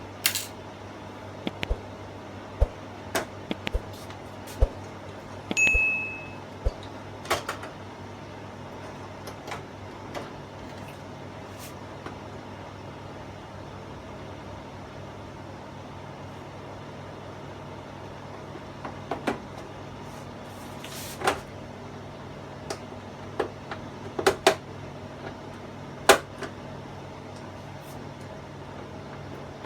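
Scattered sharp clicks and light knocks of hands and tools working on the opened plastic TV housing, with a short rasp about six seconds in, over a steady low hum.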